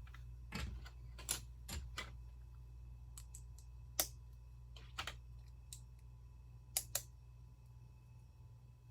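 Plastic Lego pieces clicking and tapping as they are handled and snapped together, about a dozen sharp irregular clicks, with a double click about 7 seconds in, over a low steady hum.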